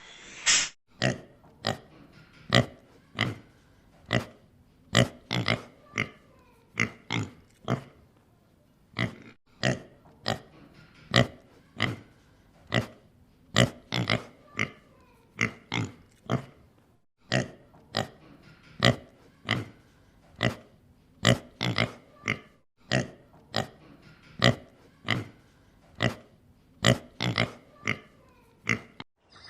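Pig grunting: a long run of short grunts, about one to two a second, with a few brief pauses.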